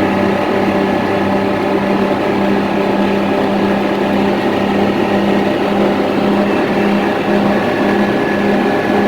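Large tri-axle diesel truck's engine running at a steady speed, a constant drone that holds the same pitch throughout.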